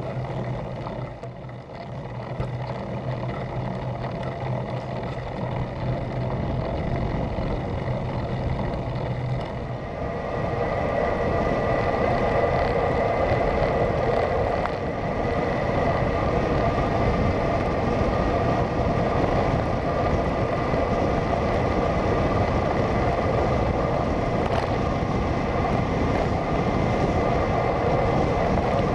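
Wind and road noise picked up by a camera on a road bike being ridden along a tarmac lane: a steady rush with a low hum, which changes and gets louder about ten seconds in as the bike rides an open road.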